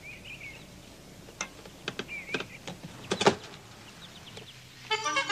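A series of sharp clicks and knocks, the loudest about three seconds in, over faint bird chirps. Near the end a sustained pitched sound begins.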